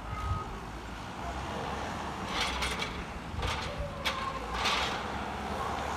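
JCB 413S wheel loader's engine running steadily under load as it pushes up a grass silage pit. Several short hissing bursts come over it in the second half.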